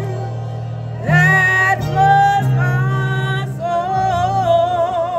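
A woman's solo voice singing a gospel song, holding long notes with a wavering vibrato, over an instrumental backing of sustained low chords that change every second or so.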